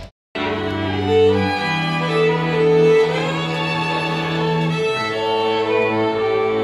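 Folk string band of fiddles, cello and accordion playing slow held chords, starting a moment in after a brief silence. The chord changes twice.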